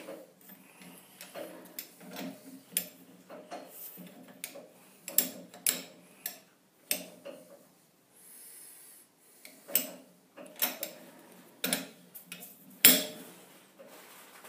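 Chuck key with a cheater bar being fitted and turned in the jaw screws of a four-jaw lathe chuck: irregular metal clicks and knocks, the loudest near the end. The jaws are being moved in small steps to clock the bar true on a dial indicator.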